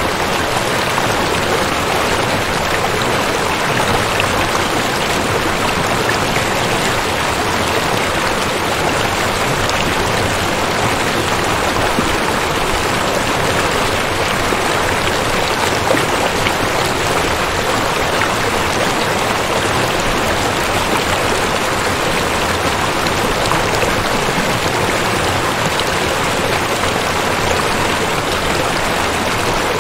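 Steady rain ambience: an even, unbroken hiss of rain falling on water.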